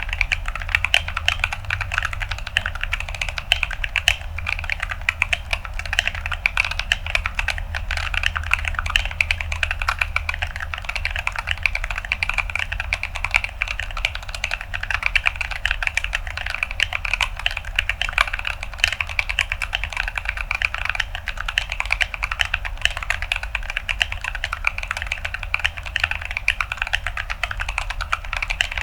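Continuous fast typing on a 75% mechanical keyboard with Gazzew Boba U4T tactile switches on an acrylic plate and ASA-profile keycaps: dense, even keystroke clicks with a crunchy character.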